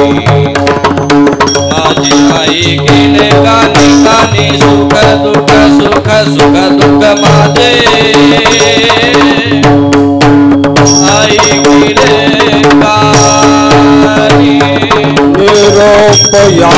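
Instrumental interlude of a Marathi devotional abhang: tabla playing a quick, continuous rhythm under sustained melodic tones.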